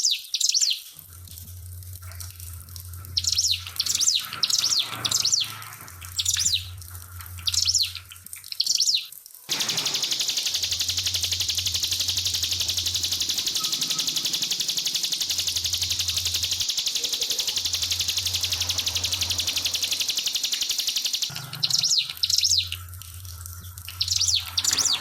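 Ciblek (prinia) singing over trickling water. It gives bursts of high, quick chirps, then a long, fast, unbroken trill starting about ten seconds in and lasting about eleven seconds, then more chirp bursts near the end.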